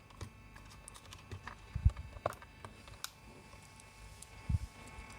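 Scattered light clicks and taps of a 2.5-inch SSD being handled and seated in a laptop's screwless drive bracket and bay, with two dull thumps, about two seconds in and near the end.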